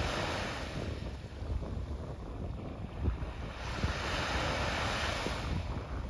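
Small waves washing onto a sandy beach, swelling at the start and again about four seconds in, with wind buffeting the microphone.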